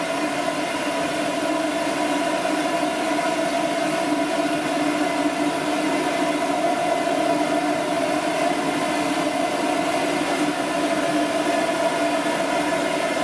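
Dog blow-dryer running steadily, a constant whirring hum that neither rises nor falls.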